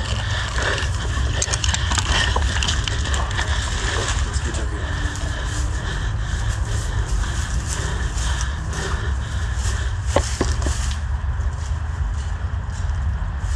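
A steady low rumble with scattered, irregular sharp clicks and knocks, and faint voices now and then.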